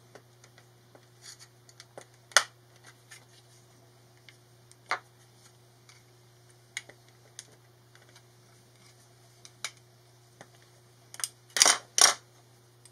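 Plastic case of a Stanley garage door remote being prised open by hand: scattered small clicks, then a few louder snaps close together near the end as the back cover comes away.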